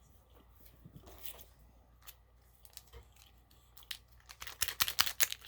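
Paper or plastic fast-food packaging being handled and crinkled, faint at first, then a quick run of sharp crackles near the end.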